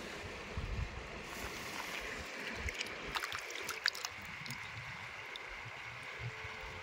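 Mountain stream water running steadily, with low wind rumble on the microphone. A few sharp clicks come in a cluster about three to four seconds in.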